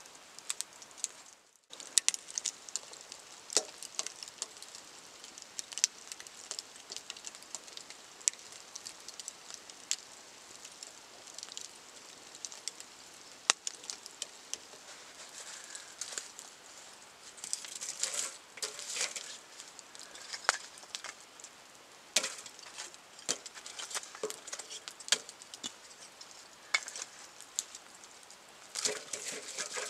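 Wood fire burning in a fire pit, crackling with scattered irregular pops and snaps over a low hiss.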